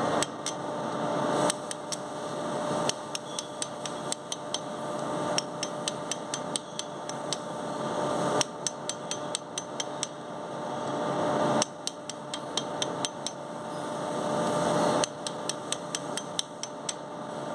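Hand hammer tapping a steel drift pin set in the slot of a machine-tool spindle's lock nut, light metallic taps in quick runs of several, to unscrew the nut gently so its thread is not damaged.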